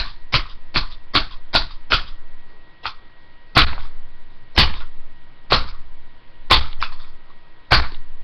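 Hammer blows on a Dell computer mouse's plastic casing: quick strikes about two to three a second, then after a short pause, slower blows about once a second.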